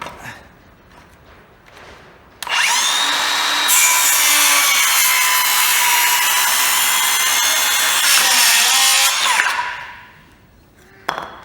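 Milwaukee cordless 165 mm circular saw starting up suddenly about two and a half seconds in and cutting through wood for about seven seconds, then running down. It is the first test cut after a new motor driver board was fitted, and it works. A short knock follows near the end.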